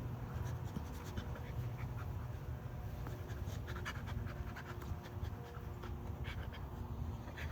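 A dog panting steadily, with scattered short high clicks and ticks over it.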